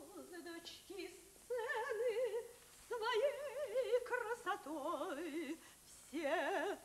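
A woman's operatic voice singing unaccompanied: a series of held notes with a wide, heavy vibrato, broken by short pauses, the pitch stepping up and down between phrases.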